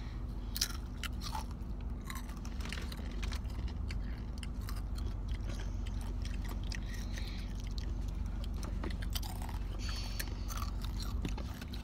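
Hot Takis rolled tortilla chips being bitten and chewed close to the microphone: irregular sharp crunches, over a steady low hum.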